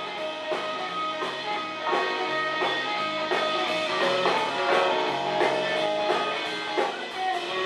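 Soul band playing live without vocals: an instrumental passage led by electric guitar over bass and drums keeping a steady beat.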